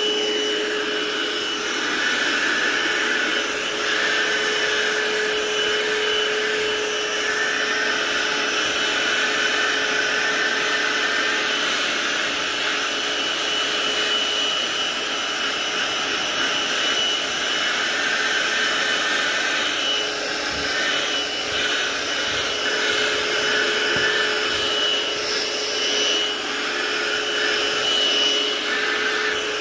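Vacuum cleaner running steadily with a high whine, its suction rising and falling in pitch as the nozzle is worked over a cat's fur.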